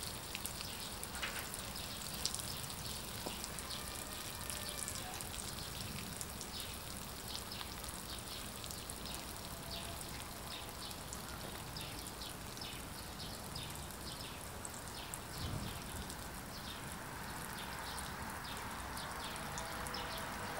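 Water spraying from a NEMO Helio Pressure Shower's hand nozzle and pattering onto grass and gravel as a steady spatter of drops. The spray weakens as the tank's pump-built pressure runs down.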